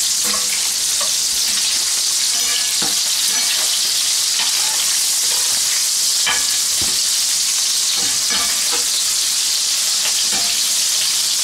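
Prawns and garlic sizzling in olive oil in a cast-iron frying pan, a steady hiss, with scattered clinks of a metal fork against the pan as the prawns are turned and lifted out.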